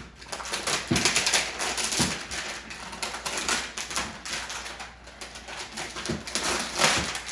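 Crinkling and rustling of toy packaging being handled and pulled apart, with a few soft knocks.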